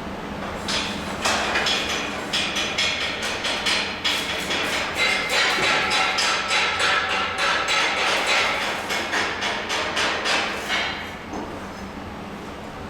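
Hammer striking metal in rapid repeated blows, each with a short metallic ring, easing off near the end.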